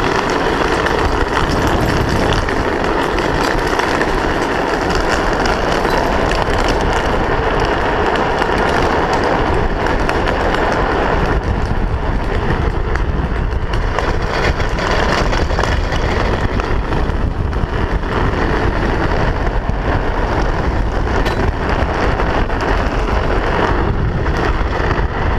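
Steady rush of wind over a helmet-mounted camera mixed with the continuous noise of a drift trike's wheels rolling fast on asphalt downhill.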